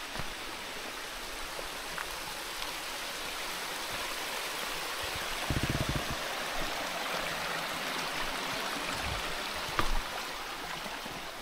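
Running water, like a stream, making a steady rush, with a short low fluttering about halfway through and a brief thump near the end.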